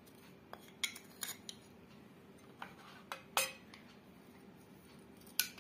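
A spoon clinking and tapping against a steel pot and a plastic spice dish as spices are spooned in: scattered light clicks, the loudest about three and a half seconds in.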